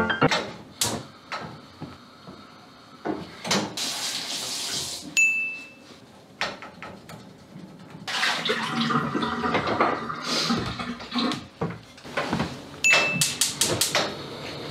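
Kitchen cooking sounds: scattered clicks and knocks of cookware and utensils, running water or sizzling that grows fuller about halfway through, and two short high appliance beeps.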